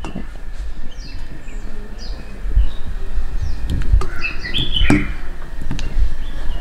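Small birds chirping repeatedly in short, falling chirps, thickest around the fourth and fifth second. Underneath runs a low rumble with a few dull thumps.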